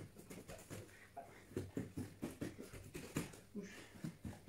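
Quick, irregular soft pats of bare hands and feet on a padded mat, several a second, sped up by the fast-forwarded footage.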